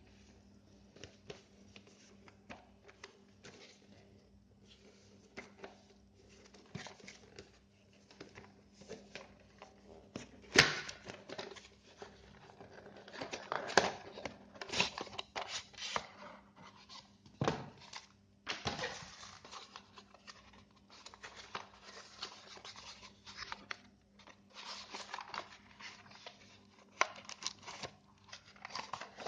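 Hands handling computer-part packaging while unboxing a motherboard: irregular rustling and crinkling of plastic and cardboard with scattered clicks and light knocks, the sharpest knock about ten seconds in, over a faint steady electrical hum.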